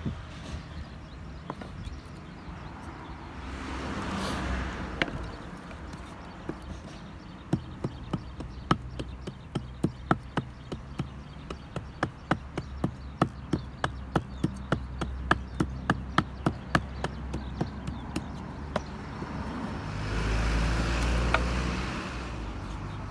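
A long, even run of sharp knocks, about three a second, for roughly ten seconds. Gusts of wind buffet the microphone before and after it.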